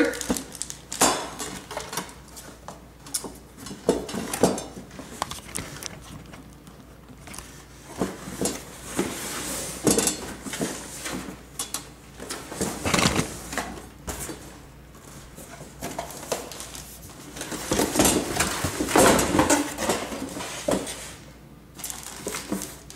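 Packaging and a heavy mandoline being handled during unboxing: irregular clicks, knocks and rustling, busiest in a few clusters.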